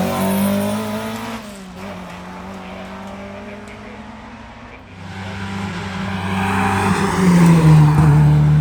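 VW Polo hillclimb race car engine held at high revs. It fades after the first second or two, then grows loud again as a car comes closer, loudest near the end.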